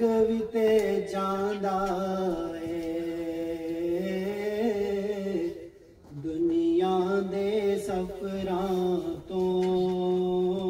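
A man's solo voice chanting an Urdu naat without accompaniment, in long held notes that waver and turn slightly. A breath breaks the singing for about a second halfway through, and a shorter one comes near the end.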